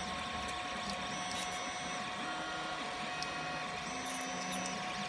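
3D printer running a print: its stepper motors whine in short tones that jump to a new pitch with each move of the print head, over a steady hum.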